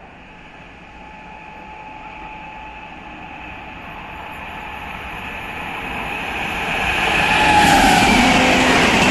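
Indian Railways passenger train approaching and passing close at speed, its rumble growing steadily louder for about seven seconds until the locomotive rushes by near the end.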